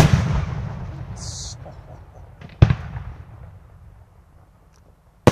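Aerial firework shells bursting: a loud bang at the start that rolls away in a long echo, a second bang about two and a half seconds in, and another just as it ends.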